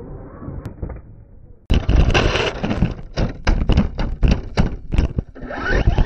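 Onboard audio from a camera riding on a radio-controlled car driving over rough grass: a quick run of knocks and thumps as the chassis jolts over bumps. A duller, quieter stretch comes before an abrupt cut about a second and a half in, and a steady high whine joins near the end.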